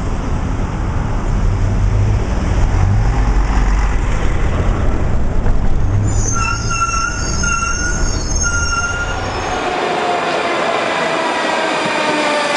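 A city bus's diesel engine runs with a heavy low rumble. From about six seconds in, a high tone sounds several times in short broken spells. Then the rumble gives way to a Moscow metro train pulling in, its traction motors and wheels whining in several tones that slowly fall as it slows.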